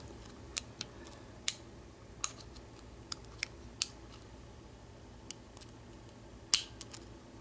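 Irregular small metallic clicks of a hook pick and tension bar working the pins of an American Lock 1100-series padlock, a dozen or so scattered ticks. The sharpest comes late, followed by a couple of quick lighter ones.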